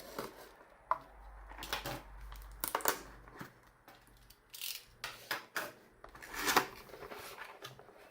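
Packaging being unboxed by hand: a series of irregular tearing, rustling and crinkling sounds, the loudest about three seconds in and again near six and a half seconds.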